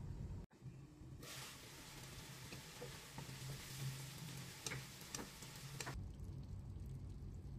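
Okra and prawn gravy sizzling in a non-stick pan as a wooden spatula stirs it, with a few light clicks of the spatula against the pan. The sizzle starts about a second in and cuts off about six seconds in, leaving a low hum.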